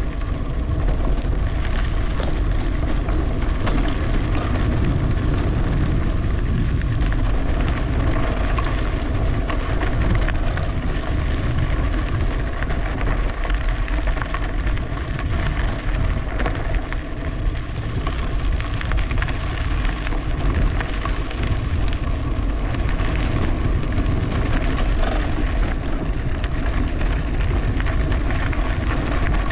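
Riding noise from an e-bike on a trail: wind buffeting the microphone in a steady low rumble, with a crackle of tyres over the trail surface and a faint steady hum underneath.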